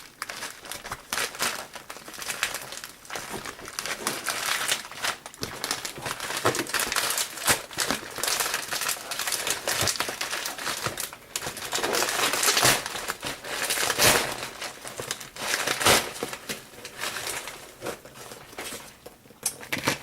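A package being opened by hand: continuous irregular crinkling and rustling of packaging material, with sharp crackles and bits of tearing.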